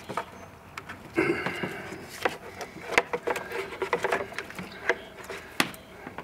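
Irregular clicks, knocks and rattles of old rubber fuel hoses and plastic fittings being pulled loose and handled by gloved hands.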